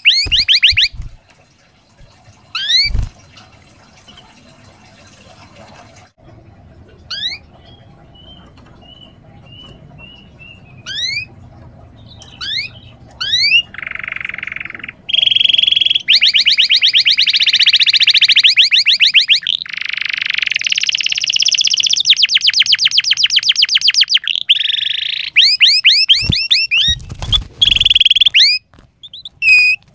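Domestic canary singing: sparse quick rising notes at first, then a buzzy held note and long, loud, fast trills from about halfway on.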